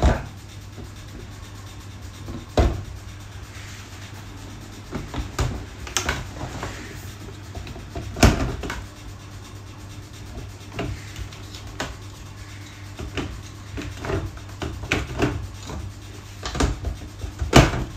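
Plastic bowl of a food processor being twisted, lifted and seated on its motor base: scattered clicks and knocks, the loudest at the start, about eight seconds in and near the end.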